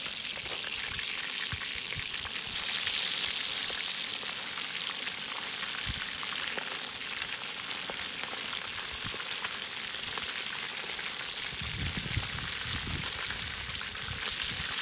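Whole fish frying in hot oil on a wide, shallow metal disc pan: a steady sizzle with fine crackling spatters, briefly louder about three seconds in.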